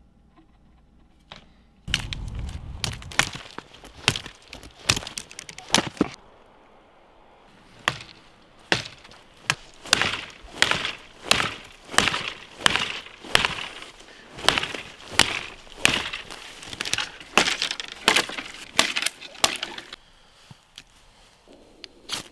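A large bushcraft knife made from an old file shaving curls down a dry wooden stick to make a feather stick. It is a steady run of sharp slicing strokes, about one and a half a second, with a short pause about six seconds in.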